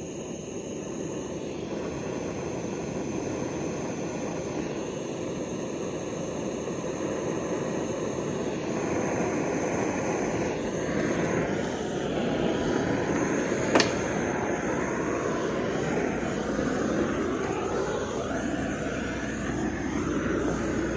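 Oxy-fuel cutting torch burning with a steady roar while cutting bearings off a shaft, with a single sharp click about fourteen seconds in.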